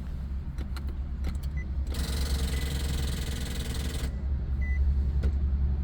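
A motor in the Nissan 370Z's driver door whirring for about two seconds, starting about two seconds in, over a steady low hum, with a few faint short beeps. The door keeps running on its own, which could drain the battery and probably explains why the car won't start.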